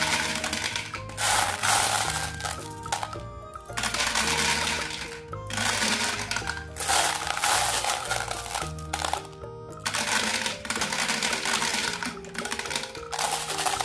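Background music, with glass marbles clinking as they drop one by one into the plastic drum of a Bruder toy cement mixer truck.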